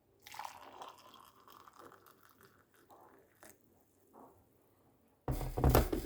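Water pouring from an electric kettle's spout, a faint splashing that thins out and stops after about four seconds. Near the end there is a loud, brief clatter.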